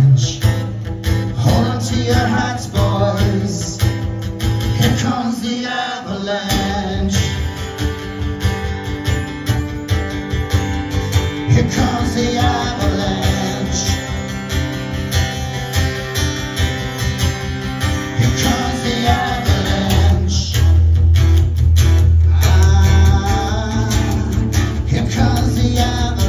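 A man singing live while playing an acoustic guitar, in a solo acoustic song performance.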